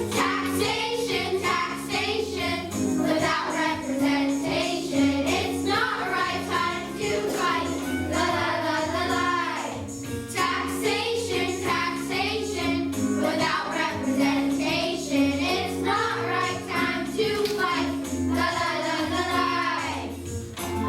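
Background music: a song with sung vocals over instrumental backing.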